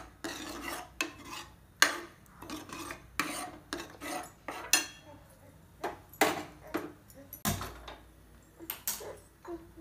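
Steel ladle stirring thick mashed green gram curry in an aluminium pressure cooker, scraping and clinking against the pot in irregular strokes. A duller knock comes near the end.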